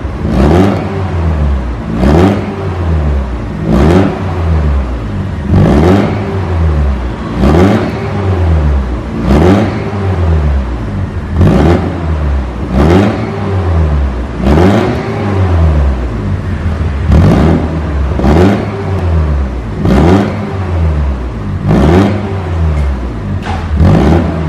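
BMW E36 318i's 1.8-litre four-cylinder engine blipped about fourteen times from idle, roughly one rev every two seconds, each one rising and falling back. It runs through an exhaust with the stock header, the resonator deleted and an NDK Pro Twin dual-tip muffler, and the note is very loud.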